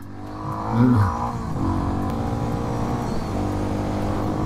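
Motorcycle engine running at a steady cruise on a mountain road, with a short rise in revs about a second in.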